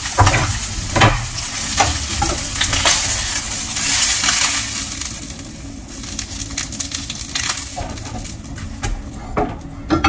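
Omelette frying in a pan: a steady sizzle with repeated clicks and scrapes of a utensil against the pan. The sizzle eases off about halfway through.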